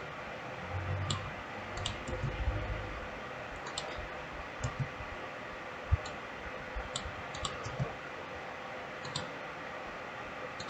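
Computer mouse clicking irregularly, about a dozen sharp clicks spread over a steady faint hiss and hum. A few soft low thumps come in the first three seconds.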